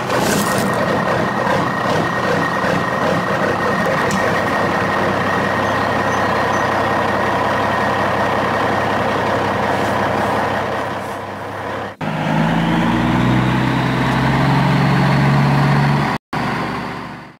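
Small plastic DC gear motor (BO motor) whirring steadily under load as the model dump truck's rock-filled bed tips up. About twelve seconds in it breaks off briefly and starts again with a slowly rising whine, then cuts out just before the end.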